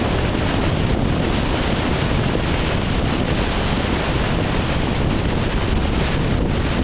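Strong storm wind blowing over the microphone: a loud, steady rushing noise with no breaks.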